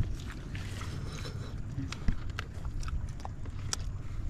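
People eating with their hands, chewing and smacking, with scattered small clicks from handling food and a sharper knock about two seconds in, over a low steady rumble.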